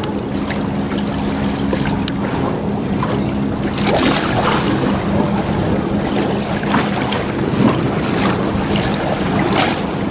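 Wind buffeting the microphone over a steady low engine hum, with scattered small knocks.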